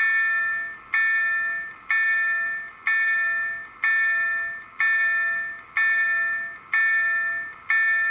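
EDE-1 electronic level-crossing bells ringing, a bell-like tone struck about once a second, each stroke dying away before the next: the crossing's warning is active.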